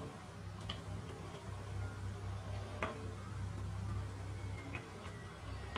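Faint handling sounds from hands tying thin inner-tube rubber strips around latex slingshot tubing: a few sharp ticks and light rubbing, over a steady low hum.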